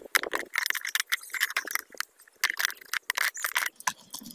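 Utility knife blade cutting and scraping through the side of a clear plastic jar, with irregular clicks and crackles from the plastic.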